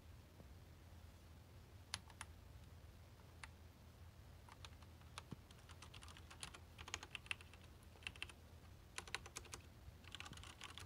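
Faint keystrokes on an Esprit 125C terminal keyboard: scattered single clicks, then quicker little runs of key presses in the second half, over a faint steady low hum.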